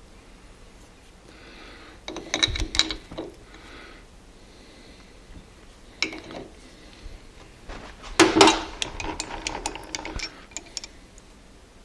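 Metal clinks and clanks from a lathe tool post and tool holder being adjusted by hand with an adjustable wrench. A cluster of knocks comes about two seconds in and a single clank around six seconds. The loudest part is a quick run of clicks and rattles from about eight to ten and a half seconds.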